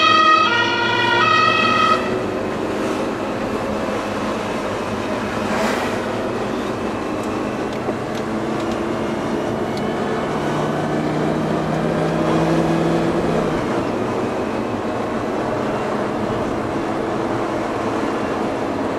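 A two-tone siren alternates between two notes for about the first two seconds. After that comes the Lamborghini Gallardo's V10 engine at low speed, with tyre and road noise heard from inside the cabin and a few gentle rises in revs.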